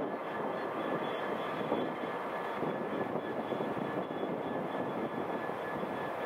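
Diesel locomotive engine running steadily: a constant drone with a thin, steady high whine over it.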